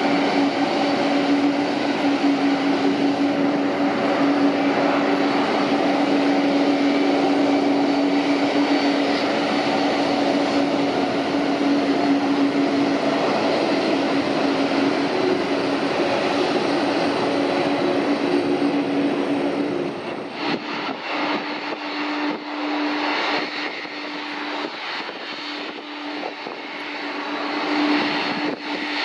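Boeing 777 jet engines at idle thrust while the airliner taxis: a steady drone with a strong, even hum. About twenty seconds in it drops to a quieter, uneven background, and the engine hum comes back near the end.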